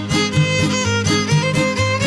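Trio huasteco instrumental passage: a violin plays a quick melody over the steady strummed rhythm of the jarana huasteca and huapanguera.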